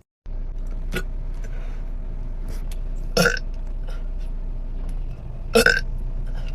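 A woman burping twice, short loud burps about three seconds and five and a half seconds in, over a steady low hum.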